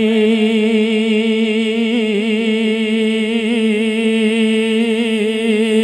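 A man singing a naat without accompaniment, holding one long note with a slight waver.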